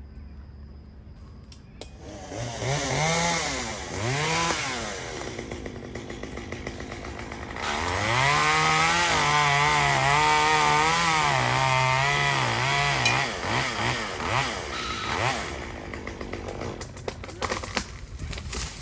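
Two-stroke chainsaw blipped twice, then held at full throttle for about five seconds with its pitch wavering as it cuts into a pecan limb, then dropping back to idle.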